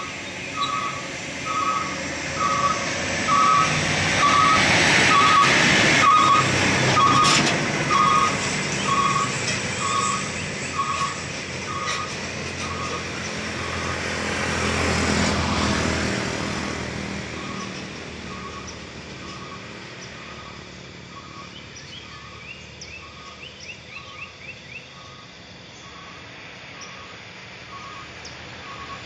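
Heavy container trucks climbing past with engine and tyre noise, the loudest pass about four to eight seconds in and another around fifteen seconds in. A steady warning beeper sounds a little under twice a second and fades near the end, and birds chirp in the quieter last part.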